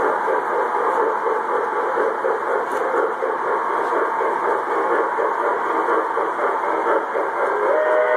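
O gauge model train running on the layout's track: a steady mechanical rumble with a fast rhythmic pulse. Near the end a two-note whistle starts and holds.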